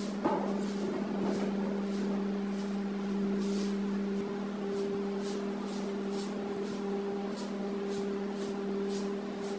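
Steady machine hum with a faint hiss pulsing about twice a second, and a single knock shortly after the start.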